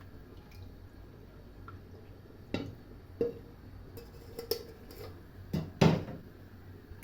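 Several separate knocks and clinks of pots and kitchen utensils being handled while a boiled herbal remedy is strained, the loudest near the end.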